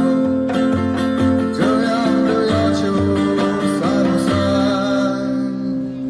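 Street performance music: an amplified acoustic guitar strumming chords, with a djembe hand drum keeping a steady low beat, getting somewhat quieter near the end.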